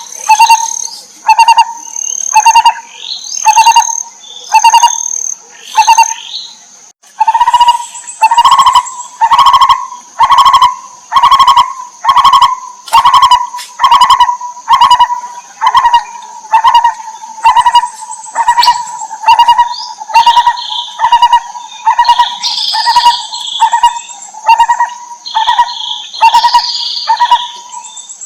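Lineated barbet calling, a long run of evenly repeated hollow notes, slower at first and speeding up after a short pause. A steady high-pitched whine runs behind it, and higher chirps join in near the end.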